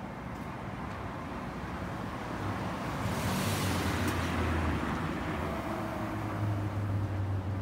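Street traffic noise, swelling about two and a half seconds in as a vehicle's low engine drone comes up and holds, with a brief hiss near the middle.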